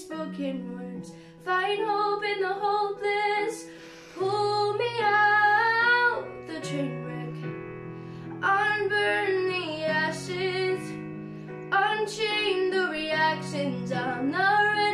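A girl singing a slow ballad solo, in several sung phrases with short breaks between them, over an instrumental accompaniment of sustained chords.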